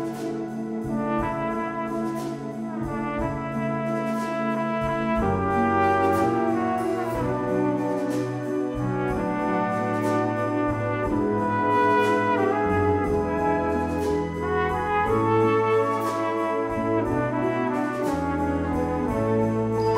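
Symphonic wind band playing, with a solo brass instrument carrying the melody over sustained chords and a moving bass line.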